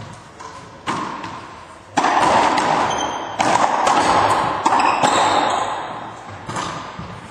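Racquetball rally: the rubber ball cracking off racquets, walls and floor, a sharp hit about once a second, each one ringing on in the enclosed court.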